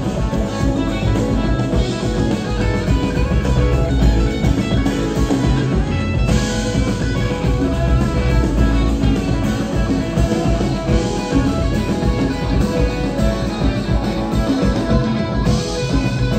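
Live rock band playing an instrumental passage: electric guitar over bass, drum kit, keyboard and congas.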